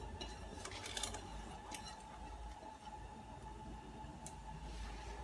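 A few faint, light clicks of kitchen utensils over a quiet, steady hum.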